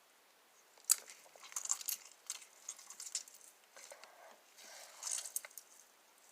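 Homemade glue slime being squeezed and pulled apart by hand: irregular sticky crackles and clicks, starting about a second in.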